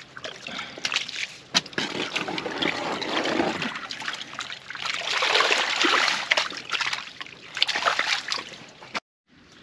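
Water splashing and trickling and wet mud squelching as the waterlogged mud beside a boat hull is dug and levered with a bar, with scattered small knocks. It cuts off suddenly near the end.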